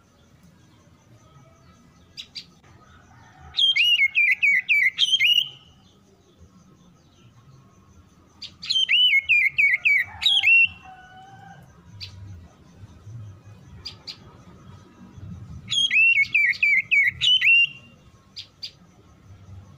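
Oriental magpie-robin singing: three phrases of quick, repeated down-slurred whistles, each about two seconds long, several seconds apart.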